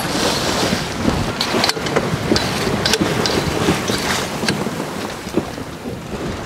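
Wind buffeting the microphone and sea water rushing along the hull of a sailboat under way, with scattered light knocks and clicks.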